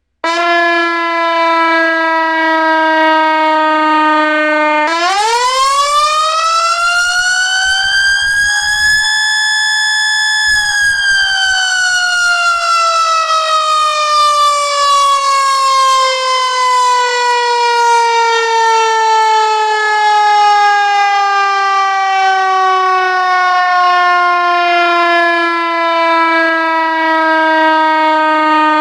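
Whelen X-Ecutor mechanical siren simulator sounding through its purpose-built siren speaker: a steady low tone, then about five seconds in a fast wind-up to a high pitch that holds briefly before slowly coasting back down over the rest, imitating a mechanical siren's rotor spinning up and winding down.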